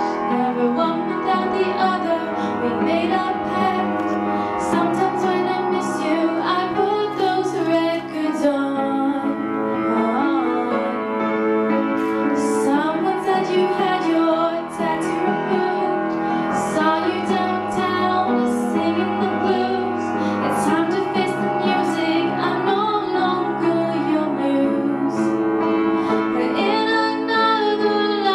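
A woman singing a pop song live into a microphone, accompanied by acoustic piano.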